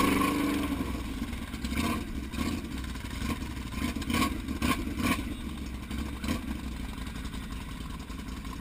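Quad ATV engines running at idle with a steady low rumble, and a few short knocks or rattles along the way.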